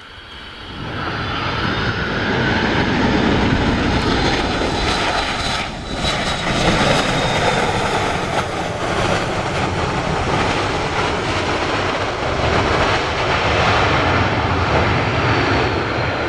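McDonnell Douglas MD-83's twin rear-mounted jet engines running at high power as the airliner rolls past along the runway. The noise swells over the first second or two and then holds loud, with a high whine that slowly falls in pitch as the jet goes by.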